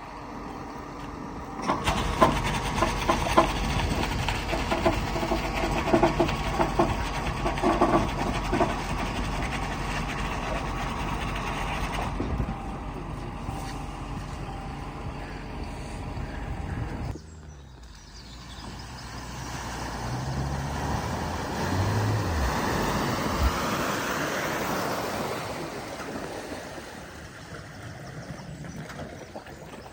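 A vehicle's engine running loudly while being driven through deep floodwater, then cutting out suddenly about seventeen seconds in: the engine stalling as water gets into it. Afterwards a rushing noise swells and fades.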